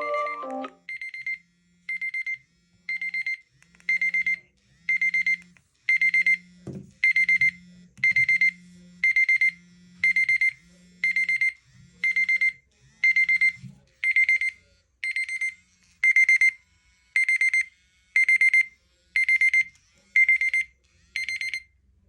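Mobile phone alarm clock going off: a short, high electronic beep repeated about once a second. A low buzz sounds in time with the beeps for the first two-thirds, and there is a single knock about seven seconds in.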